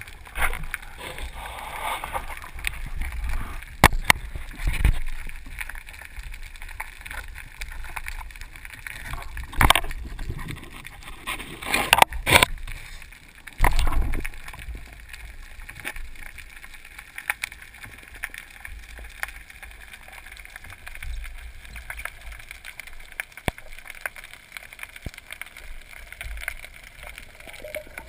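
Muffled underwater noise picked up by a camera in a waterproof housing while a spearfishing diver moves with his speargun. A few sharp knocks stand out, about four seconds in, around ten seconds, twice around twelve seconds and once near fourteen seconds.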